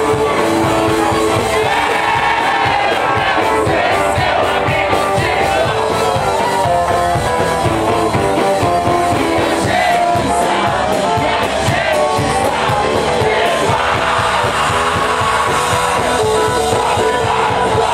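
A rock band playing live and loud: a lead singer over electric guitars and a steady drum beat.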